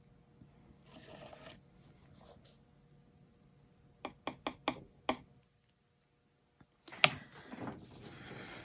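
Handling noise from a paint-pouring turntable as it is turned. A brief scraping rub comes about a second in, then a quick run of five light clicks around four seconds in, then a sharp click and a longer scraping rub near the end.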